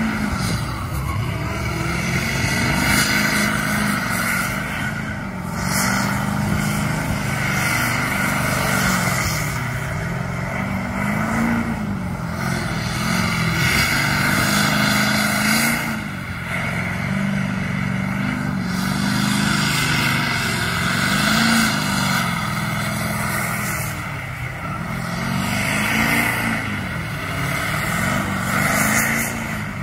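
Pickup truck doing a burnout: its engine revs up and drops back over and over, about every two seconds, over the steady screech of spinning rear tyres.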